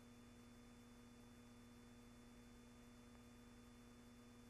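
Near silence: only a faint steady hum and hiss, with no sound from the pictured scene.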